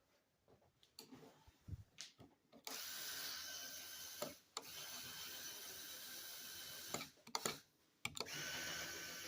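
Small electric motor driving plastic gears, running with a steady whir. It stops and starts again twice, after a few clicks from handling the parts.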